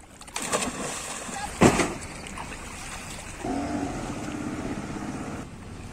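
A person diving into the sea with a splash about a second and a half in, then a small fishing boat's motor running steadily for a couple of seconds.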